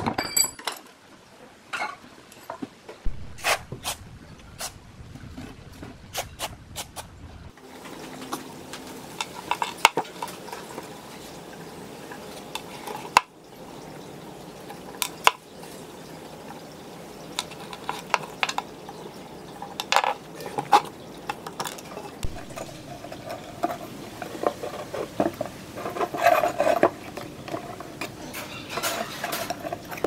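Screwdriver and loose metal parts clinking, tapping and scraping against the rusty steel housing of an old ceiling fan motor as it is taken apart, in a string of sharp, irregular clicks.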